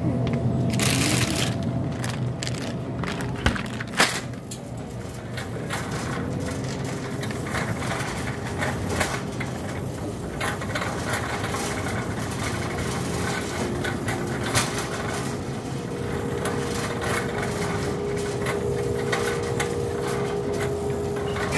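Supermarket ambience: a steady hum from the refrigerated display cases under general store noise, with rustling from the phone being handled. Two sharp knocks come about three and a half and four seconds in.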